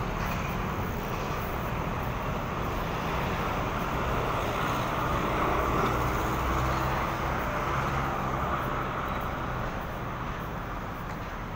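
Street traffic noise from passing vehicles, with an engine hum that builds to its loudest about halfway through and then eases off.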